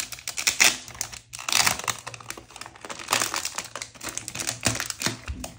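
Clear plastic wrapping around a journal crinkling and crackling as it is handled and pulled open by hand, in a dense, irregular run of crackles.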